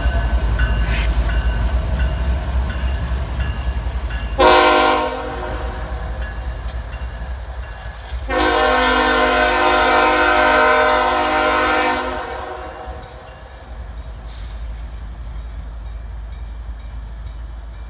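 Two Norfolk Southern diesel locomotives running light, a deep engine rumble with a few wheel clicks as they pass, then the locomotive air horn as they move away: a short blast about four and a half seconds in and a long blast of about four seconds from around eight seconds in. The engine rumble fades after the horn.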